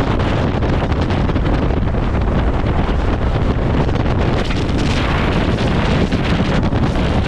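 Strong gale-force wind buffeting the microphone: a loud, steady, low rumbling rush that turns a little hissier about two-thirds of the way in.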